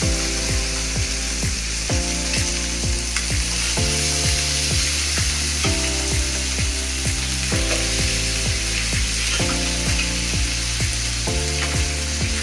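Chicken wings sizzling in a hot grill pan, a steady frying hiss, under background music with a steady beat of repeating chords.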